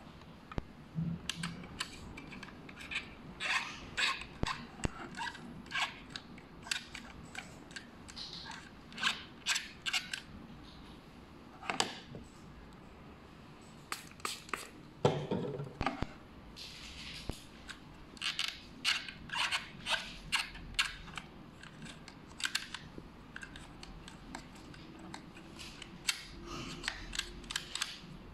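Irregular light clicks, taps and rustles of hands handling a Phomemo D30 label printer's plastic case and open cover while it is wiped clean with a cotton swab.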